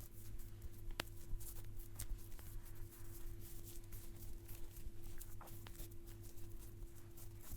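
Close-miked hand massage: irregular light rubbing, rustling and patting of hands on skin and hair, with one sharp click about a second in, over a steady low electrical hum.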